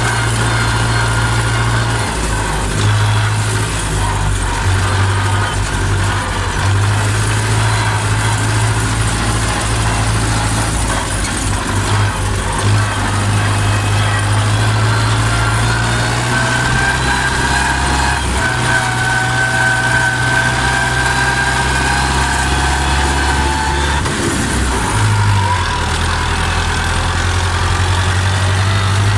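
Steyr 650 Plus tractor's four-cylinder, four-stroke diesel engine running steadily, its low note shifting slightly in pitch, with a higher tone that rises slowly through the second half.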